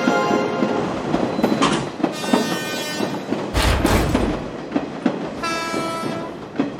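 Train sound effects: wheels clicking over rail joints in a quick rhythm, broken by several short horn blasts, with a loud low rumble about three and a half seconds in.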